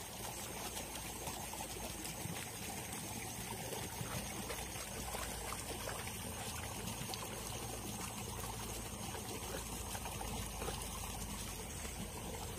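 Water trickling and flowing steadily, with many small splashy ticks.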